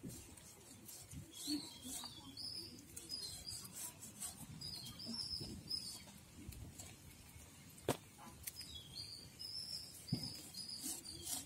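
A small bird chirping in two runs of short, high, repeated notes, with a single sharp knock about eight seconds in and a few fainter clicks.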